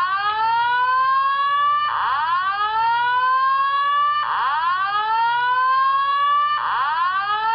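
Simplex Slow Whoop fire alarm evacuation tone sounding through a Simplex TrueAlert speaker/strobe. It is a repeating whoop that sweeps up in pitch, fast at first and then levelling off, for a bit over two seconds before it snaps back and starts again, about three and a half times.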